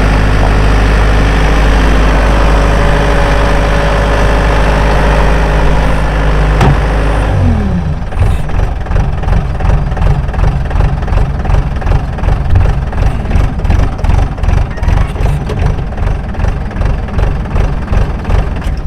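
2012 Bobcat S185 skid steer's four-cylinder turbo diesel running at high revs. About seven seconds in it drops in pitch and settles to an idle with an even pulsing beat.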